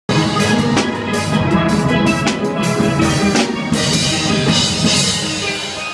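Steel pan band playing with drums, fading down near the end.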